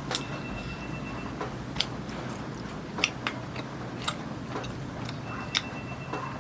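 Eating sounds during a mukbang: chewing of tteokbokki with a few sharp clicks a second or so apart, over a steady low background noise.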